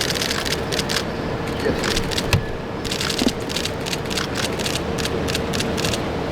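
Bursts of rapid camera-shutter clicking from press photographers, over a steady background hum, with a couple of single knocks.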